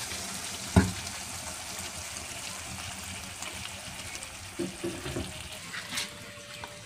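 Chicken in thick sauce sizzling steadily in a pan, slowly dying down, with one sharp knock about a second in and a light click of the stirring spoon near the end.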